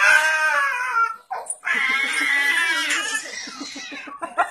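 A young child crying in long, high, wavering wails, with a short break about a second in.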